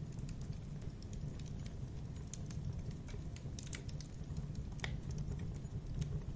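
Campfire crackling: a wood fire giving off irregular sharp snaps and pops over a steady low rumble, with one louder pop about five seconds in.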